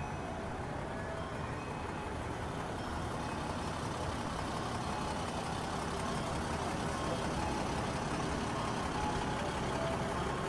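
Steady street traffic noise with a large vehicle's engine idling, such as a city bus at a stop.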